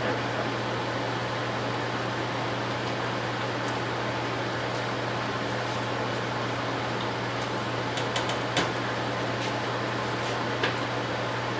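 Pork chops boiling in salsa in a stainless steel skillet on a gas burner, under a steady whirring hum and hiss. A few faint clicks come near the end.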